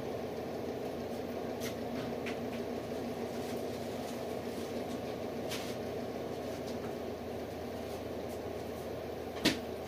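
Steady low background hum in a small room, with a few faint clicks and one sharper click shortly before the end.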